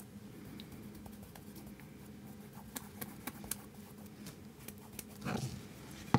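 Faint handling noise of a canvas panel and paintbrush at a painting table: scattered light ticks and taps, several in a row from about three seconds in, with one sharper click near the end.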